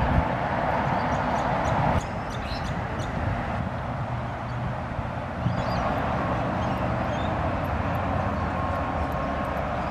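Steady road traffic noise from trucks crossing a highway bridge, a constant rumble and tyre hiss that drops abruptly about two seconds in. A few short bird chirps sound over it.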